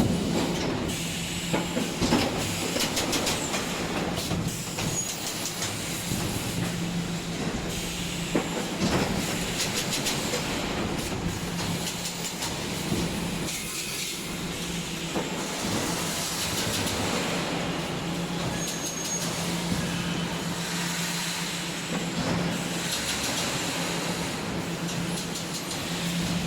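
Wire mesh welding machine running: a steady hum with a hiss over it and irregular clicks and clatter.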